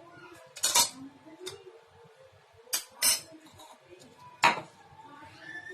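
A spoon scraping and knocking against the inside of a container as hardened, dried jaggery lehyam is scraped out: a handful of short, sharp clinks and scrapes with pauses between.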